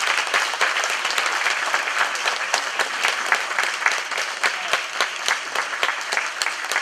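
Audience applauding, a dense steady patter of many hands clapping that sets in suddenly just before and carries on throughout, with single claps standing out more clearly near the end.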